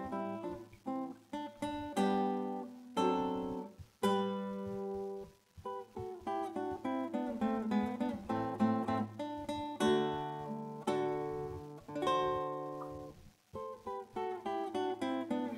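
Background music: a guitar playing picked notes and chords that ring out and fade.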